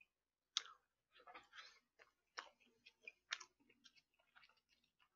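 Faint, close-miked chewing and wet mouth sounds of a person eating, in short separate bursts with light clicks between them.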